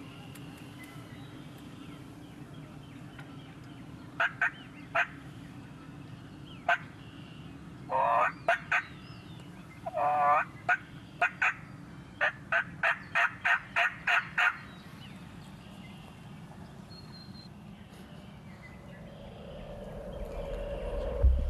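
A wild turkey gobbles twice, a few seconds in, among short sharp turkey calls, ending in a quick run of about nine notes. A low rumble builds near the end.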